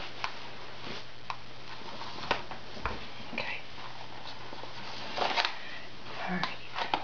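Fingertips and fingernails brushing and tapping on a coloring book page: sparse light taps, with a short burst of paper rustle about five seconds in and a few sharper taps near the end.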